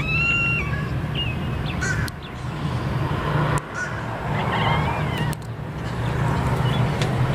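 Domestic cat chirping and chattering at birds: several short, high, wavering calls, the first with a shaky vibrato, over a steady low hum.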